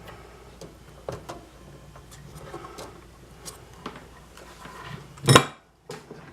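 Bench-work handling noises on a tube amplifier being repaired: scattered light clicks and rubs, with one loud knock about five seconds in, then a brief dead silence.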